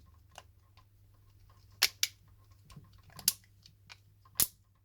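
Small screwdriver and smartphone parts clicking and ticking as screws are driven into the back of an LG Optimus L90 during reassembly: faint scattered ticks with four louder sharp clicks.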